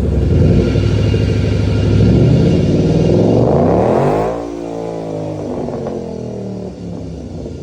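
2011 Ford Mustang accelerating, its drivetrain sound rising steadily in pitch with a whirring from the rear axle, then, about four seconds in, lifting off so the pitch falls and the sound gets quieter. The owner is unsure whether the rear axle whirring is normal.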